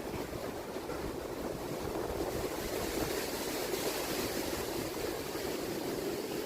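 Strong wind blowing, a steady rushing noise that buffets the microphone.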